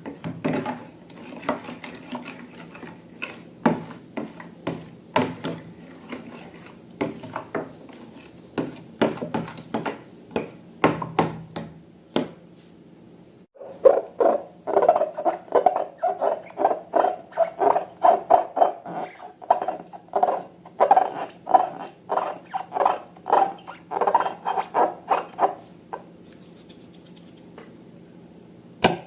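Slime being mixed and worked by hand: scattered sharp clicks and taps at first, then from about halfway a steady run of wet squelching pulses, about two a second, that stops a few seconds before the end.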